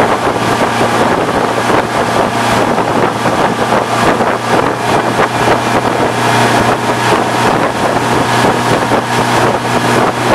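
Motorboat engine running steadily at towing speed, a constant low hum, with wind buffeting the microphone and the wake churning.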